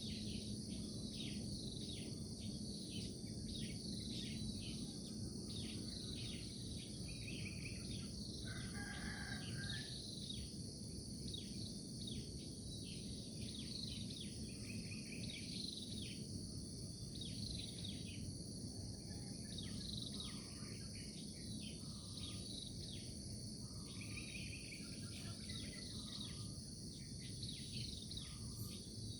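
Morning nature ambience: insects trilling steadily in a high pitch, with many birds chirping over them in short, quick descending calls, and a low steady hiss beneath.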